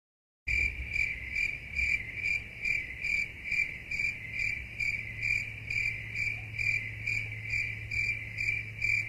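A cricket chirping, short pulses repeated evenly about twice a second over a faint low hum, starting about half a second in.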